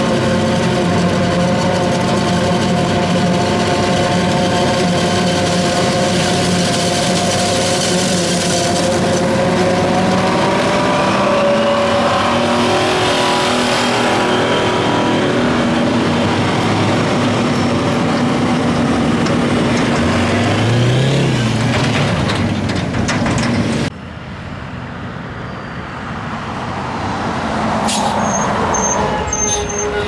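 A self-propelled forage harvester runs steadily under load, its engine and cutter head chopping standing corn for silage, with the engine note shifting in pitch partway through. After a sudden change near the end, a loaded farm truck drives up on the road, its engine growing louder as it approaches.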